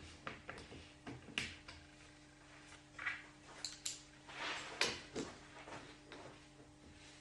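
Hand-tool and hardware handling on a wooden table top: scattered irregular clicks, taps and knocks, with a short scraping or rubbing stretch in the middle, over a faint steady hum.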